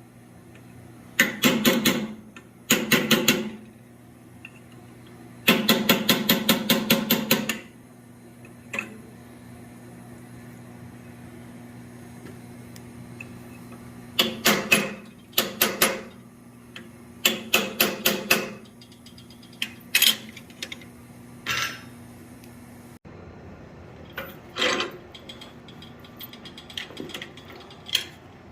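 Blacksmith's hammer striking hot steel on an anvil in bursts of quick blows, about four a second, with a ringing tone on each blow. The bursts come with pauses in between, and a few single strikes come near the end.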